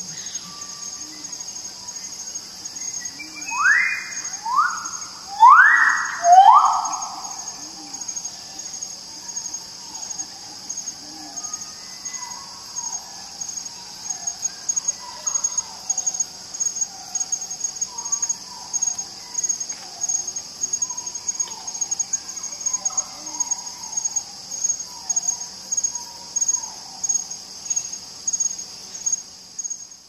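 Riflebird calling: four loud, sharp notes, each sweeping down in pitch, a few seconds in, over a steady high trill of insects. Later comes a long run of softer short bird notes, about one a second.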